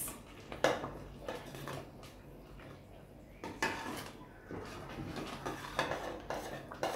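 Metal spoon scraping and clinking against a stainless steel pot while stirring thick plantain porridge, in irregular strokes.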